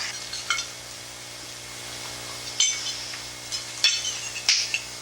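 Cutlery clinking against plates, a handful of separate sharp clinks spread over a few seconds, over a steady low hum.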